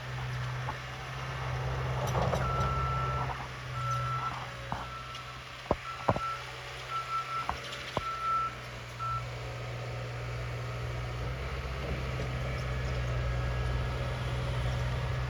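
Truck's reversing alarm beeping at one steady pitch for several seconds over a steady engine hum, with a few sharp knocks midway.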